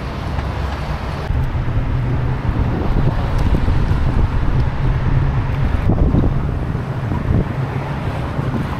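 Wind rumbling over the microphone of a moving bicycle, mixed with the steady noise of road traffic.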